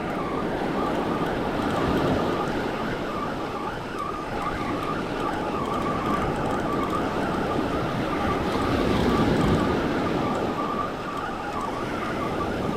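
Surf breaking and wind on the microphone, a steady rushing noise that swells and eases, with a thin, slightly wavering whistle-like tone running through it.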